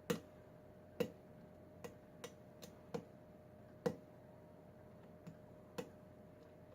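About nine sharp metallic clicks at irregular intervals from a Kwikset pin-tumbler lock being picked, the pick working the pins in the cylinder.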